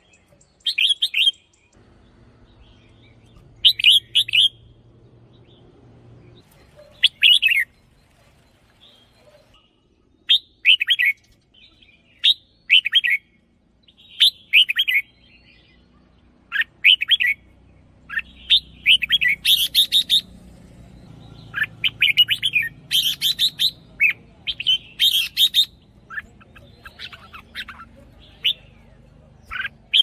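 Red-whiskered bulbul singing short, bright phrases of a few notes each, a phrase every second or two at first and coming in quicker succession through the second half.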